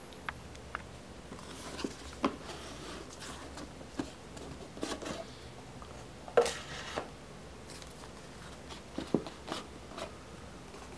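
Handling noise from a cardboard sunglasses box being opened and its case taken out: scattered soft clicks, taps and brief rustles, with a louder rustle about six and a half seconds in.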